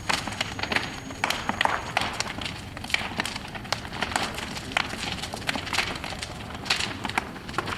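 Wood bonfire crackling, with many irregular sharp pops and cracks over a steady noisy background.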